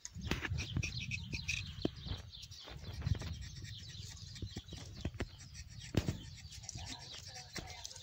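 A knife scraping and cutting the bark of a woody shrub branch in short strokes, with small clicks and rustling of twigs. A small bird chirps several times about a second in.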